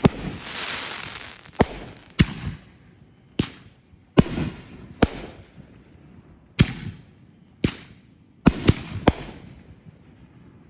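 Fireworks going off: about a dozen sharp bangs at uneven intervals, each with a short echo. The first bang is followed by a couple of seconds of crackling hiss, and three bangs come in quick succession near the end.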